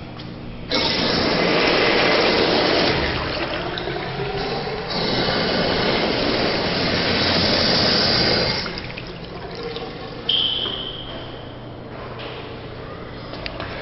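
Urinal flush valve flushing: a rush of water starts suddenly just under a second in, runs loud for about eight seconds, then tapers off. About ten seconds in, a brief high-pitched whistle starts and fades.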